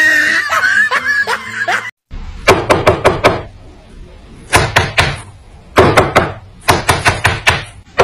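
Rosy-faced lovebird tapping its beak against a hard desktop: four quick bursts of sharp taps, each burst of several rapid taps.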